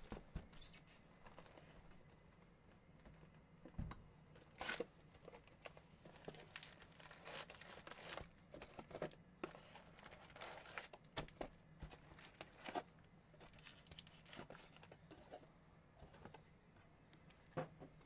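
Cardboard retail box of Bowman baseball cards being torn open and its foil-wrapped packs handled: faint, irregular tearing, crinkling and rustling of cardboard and foil wrappers.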